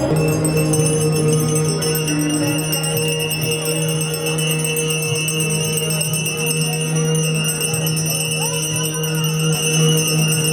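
Music with a steady held drone.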